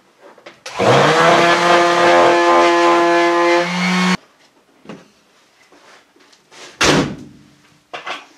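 Electric sander running for about three seconds, a steady whine over a hiss, then switched off abruptly. A sharp knock follows a few seconds later.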